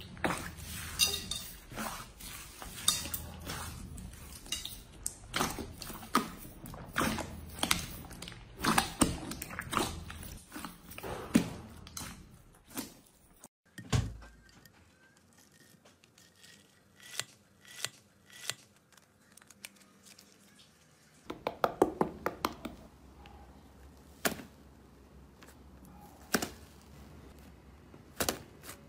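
Hands squishing slime: crunchy crackling and popping as a hand kneads pink slime mixed with white foam beads. After a cut about 14 seconds in, a few soft pops as a hand presses a flat disc of pink slime, and from about 21 seconds quick clusters of clicky crackles as fingers work slime in a tub.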